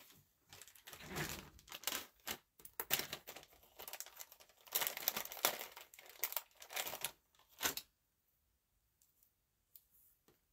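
Packaging crinkling and tearing as it is handled, in irregular rustling bursts that stop about eight seconds in.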